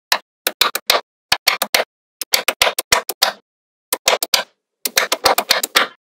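Small neodymium magnetic balls clicking and snapping together as strips of them are pressed onto a slab of magnet balls. The clicks come in quick runs of several, about six runs in all, with short silences between.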